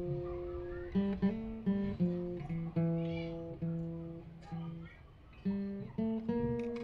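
Background music: an acoustic guitar picking single notes, each one ringing and fading, at about two notes a second.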